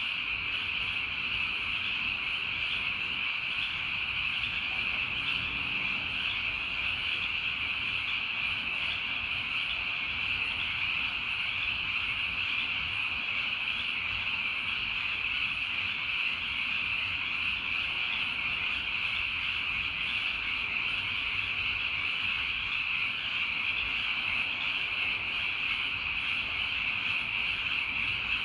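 Steady evening chorus of calling animals, a dense unbroken high-pitched drone, over a faint low rumble.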